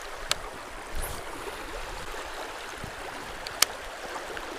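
Shallow river water flowing steadily over rocks and gravel, with two short sharp clicks, one just after the start and one about three and a half seconds in.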